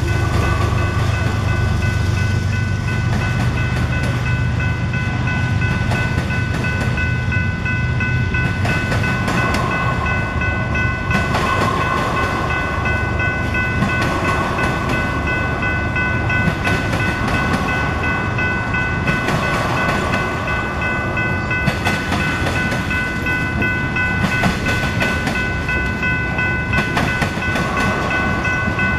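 A long freight train of tank cars rolls steadily past. Its steel wheels rumble and clatter over the rail joints and the diamond crossing, over a steady high-pitched tone.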